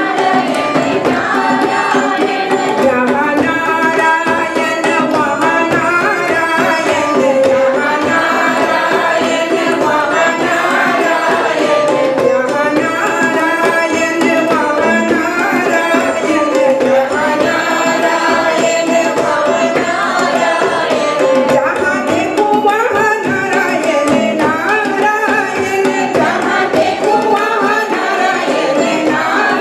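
A group of women singing a Hindu devotional song (bhajan) together, accompanied by tabla and a second hand drum.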